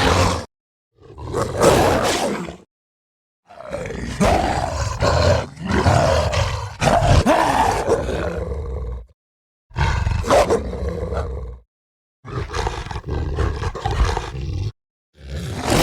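Werewolf creature vocal sound effects: a string of separate roars, each cut off into complete silence before the next. The longest runs for several seconds in the middle.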